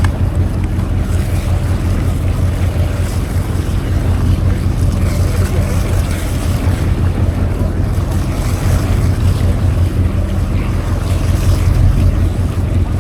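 Boat engine running with a steady low hum, with wind buffeting the microphone.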